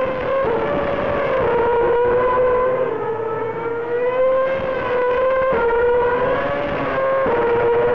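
2010 Formula 1 cars' 2.4-litre V8 engines running hard and accelerating through the gears. The pitch climbs slowly and then drops suddenly at each upshift, four or so times.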